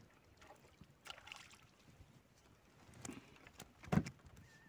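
Water splashing at the edge of a shallow lake: faint sloshing with a few short splashes, the loudest about four seconds in.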